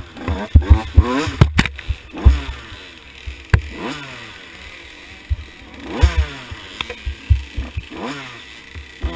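KTM 85 SX two-stroke engine with a big bore kit, revving up and dropping off again and again as the bike is ridden hard along a rough trail, with frequent heavy low thumps.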